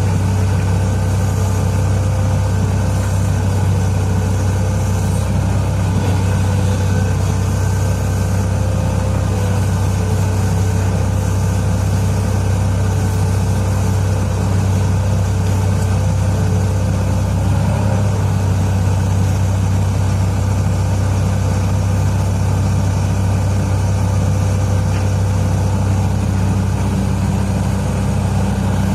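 Heavy diesel engine of mining machinery running steadily at a constant, deep pitch. Near the end a second, slightly higher tone joins in.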